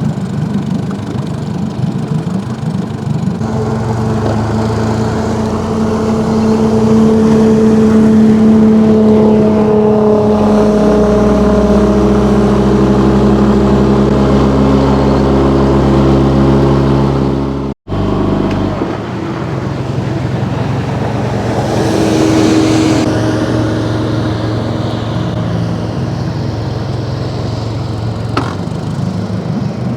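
Boat motor running steadily, its pitch drifting slowly up and down and growing fuller about ten seconds in. The sound drops out for an instant about 18 seconds in and then carries on.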